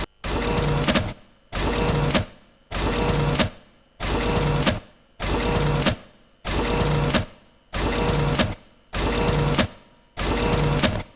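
Photocopier running in a steady cycle: a mechanical whir that starts abruptly and tails off, repeating about every second and a quarter, nine times.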